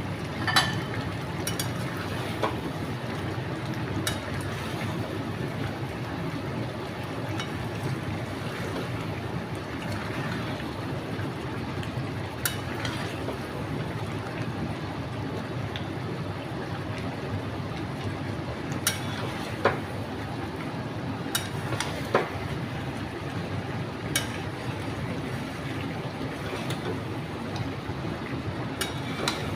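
Chicken liver and gizzard curry cooking in a pan with a steady frying hiss, and sharp clinks of a spatula against the pan every few seconds as it is stirred.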